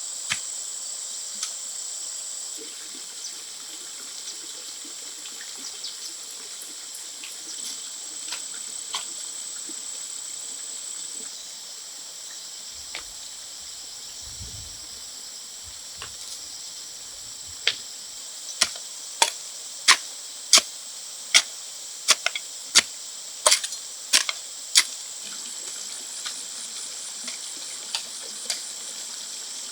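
Insects trilling in a steady high-pitched chorus. Partway through, a run of sharp knocks, about two a second for some seven seconds, rises above it.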